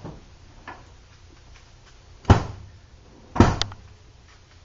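Two sharp knocks about a second apart, the second followed by a brief rattle, with a faint click shortly before them.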